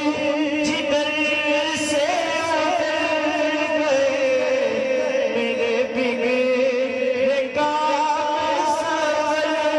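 Male voices singing a naat into microphones, unaccompanied, in long wavering held notes. A second singer joins the lead, with a steadier lower note held beneath.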